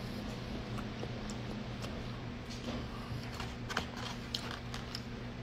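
Quiet eating sounds: a plastic fork picking at food in a styrofoam takeout container, with chewing and small scattered clicks.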